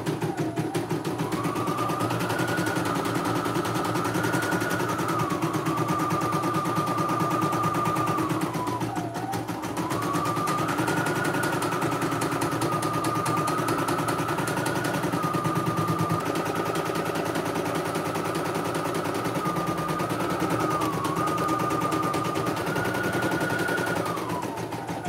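CNY E900 portable embroidery machine stitching a design: rapid, steady needle strokes over a motor whine that steps between a few pitches. The machine slows briefly about nine seconds in, then picks up again, and slows once more near the end.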